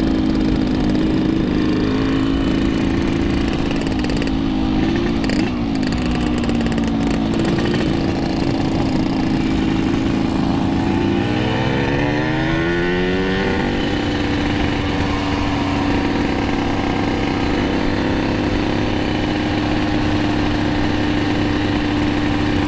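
Two-stroke motorcycle engines running on the move. About halfway through, an engine revs up and its pitch climbs, then holds steady at a higher note.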